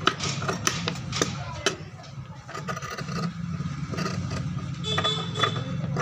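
Tailor's scissors snipping through cotton suit fabric in a run of sharp, irregularly spaced snips, over a steady low hum.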